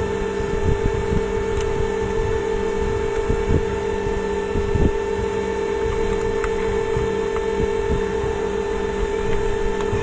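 Steady electrical hum, like a fan or mains hum, with a few light knocks from parts of a steam iron being handled during disassembly.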